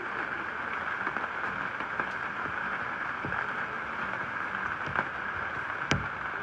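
Steady rain falling, a constant patter with scattered light drips and a sharper tick just before the end.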